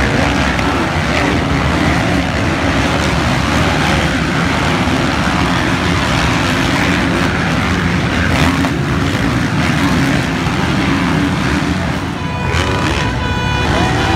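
Several motocross bikes' engines revving hard and rising and falling in pitch as they race around the track. About two seconds from the end the level dips and a steadier, higher note stands out briefly.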